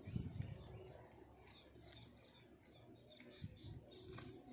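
Small birds chirping faintly and rapidly in the background, while a cat chews on a leg bone: a few dull knocks at the start and a sharp crack about four seconds in.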